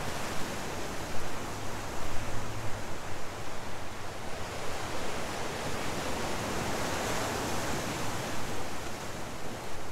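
Ocean surf breaking and washing over a rocky shore, a steady rush of water, with one wave swelling louder about seven seconds in.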